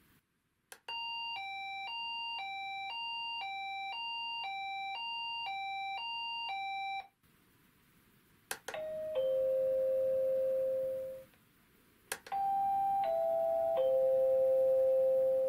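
Croma 230A electronic door chime playing its selectable ringtones through its small speaker, with a short click before each: first a quick two-note warble for about six seconds, then a falling two-note ding-dong, then a falling three-note chime whose notes ring on together near the end.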